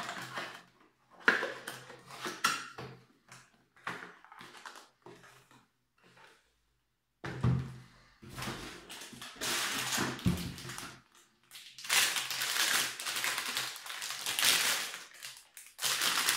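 Packaging being handled and unwrapped: rustling and crinkling of wrapping and plastic, with occasional knocks and thuds of items moved in a cardboard box. It grows louder and denser after about seven seconds, into near-continuous crinkling in the last few seconds.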